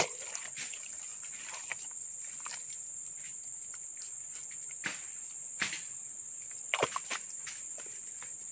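A steady high insect drone, with scattered rustles and crackles of dry leaves and wet mud as a hand digs into a small hole in the leaf litter; a few sharper crackles come past the middle.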